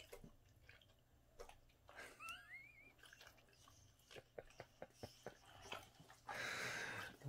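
Two boxer dogs nosing about on a rug: faint clicks and mouth sounds, a short wavering high squeak about two seconds in, and a hissing rush of noise lasting about a second near the end.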